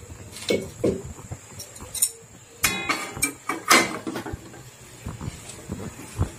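Metal spatula scraping and knocking against a metal wok as thick cooked semolina dough is stirred and mashed, working in freshly added ghee. The strokes are irregular, and one brief metallic ring comes about halfway through.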